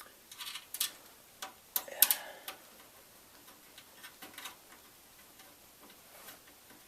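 Small sharp metal clicks and taps of a screwdriver and screw against the motherboard and computer case while a screw is fitted. A quick cluster of clicks comes in the first couple of seconds, the loudest about two seconds in, followed by a few faint ticks.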